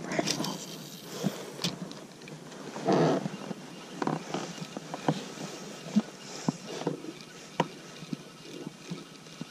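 Scattered small knocks and clicks of a spinning rod and reel being handled in an inflatable boat while a lure is retrieved, with a louder rustling rush about three seconds in.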